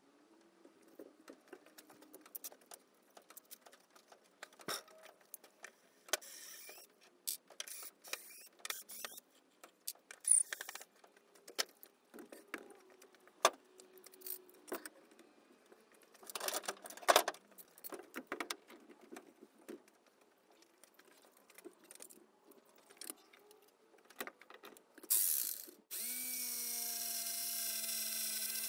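Clinks, clicks and knocks of hand tools and metal parts being worked on a lathe's motor and pulleys. About three seconds before the end, the lathe's electric motor switches on and runs with a steady hum, its pitch settling slightly lower.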